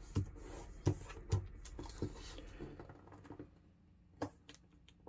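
Origami colour paper being folded and creased by hand: soft rustling with a few light ticks in the first couple of seconds, then much quieter, with one more tick about four seconds in.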